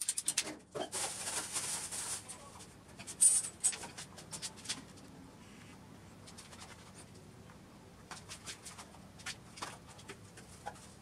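Handling noise from work on PVC water pipe fittings: scattered clicks and knocks, a rasping scrape from about one to two seconds in, and one sharp knock a little after three seconds. After that only a few light clicks.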